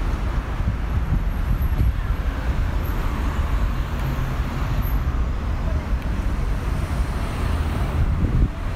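Steady city street noise: road traffic going by, with a constant low rumble.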